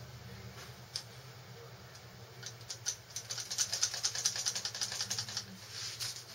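Invert Mini paintball marker being dry-fired with its electronic trigger: a quick run of sharp clicks, about ten a second for around three seconds, after a single click about a second in. A steady low hum runs underneath.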